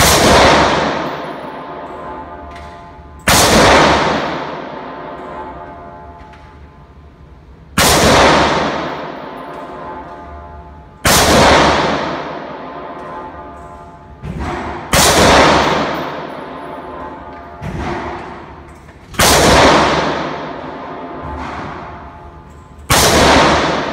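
AR-15 rifle in .223/5.56 with an 18-inch stainless barrel firing seven slow, deliberate single shots, one every 3 to 4 seconds. Each shot rings out with a long echo in a concrete indoor range, and two fainter bangs fall between the later shots.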